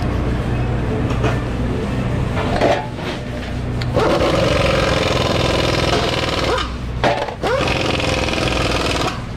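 A motor runs steadily under a low hum. Twice it rises into a sustained pitched buzz a couple of seconds long: once about four seconds in, and again shortly after seven seconds.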